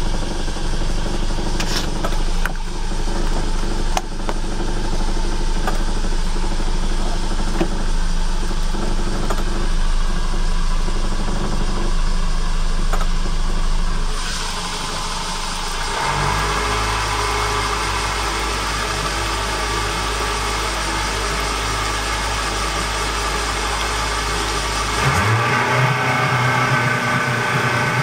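Yamaha 115 outboard motor running at low speed with the boat under way. About three seconds before the end its pitch rises as the engine speeds up.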